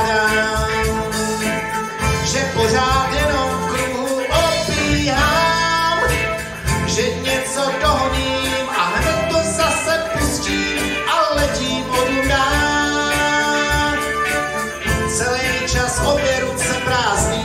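Live band playing a song: electric guitar, bass guitar, Yamaha MODX keyboard and drums, with singing over the band.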